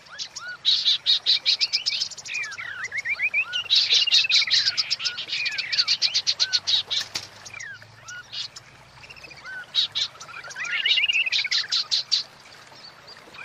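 Female white-rumped shama calling: fast trains of dry ticking rattles mixed with short whistled notes that rise and fall, in several bursts with a lull around the middle. These are the female's calls, which bring a male into breeding condition.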